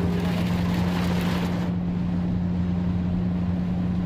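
Steady road noise inside a car driving in heavy rain: a constant low drone from the engine and tyres under the hiss of rain and road spray on the windscreen. The hiss thins out about two seconds in.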